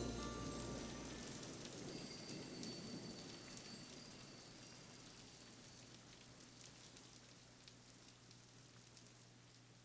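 Rain falling, an even patter of drops that fades slowly away; the last ringing notes of the music die out in the first second.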